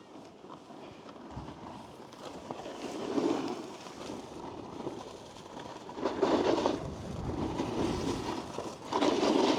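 Snowboard scraping and sliding over packed snow, with louder surges of scraping about three, six and nine seconds in.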